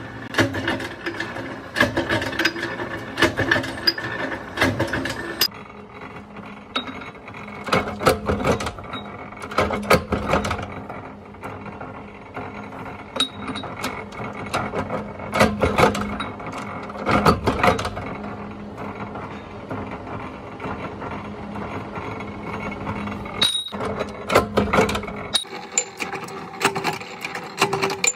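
Flywheel power press running with a steady low hum, with many irregular sharp metal clanks as short steel bar pieces are struck and worked in its die.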